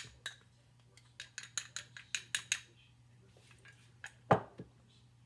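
Metal spoon clinking rapidly against a small glass bowl while stirring a wet egg-and-potato mixture, about six clinks a second, then a single louder knock about four seconds in.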